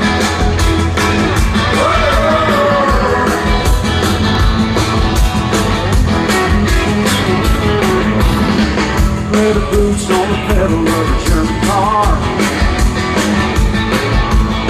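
Live country-rock band playing a song's instrumental opening over an outdoor concert PA, with a steady drum beat and bass and sliding lead lines on top. It is heard from within the crowd.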